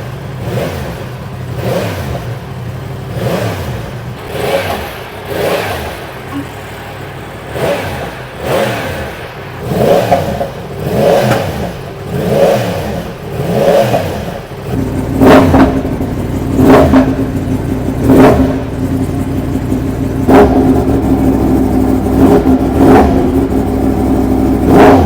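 Yamaha MT-10SP's crossplane inline-four with an exhaust fitted with a link pipe being blipped repeatedly, about one rev every second and a half. About halfway through a steady higher running note sets in under sharper, louder blips.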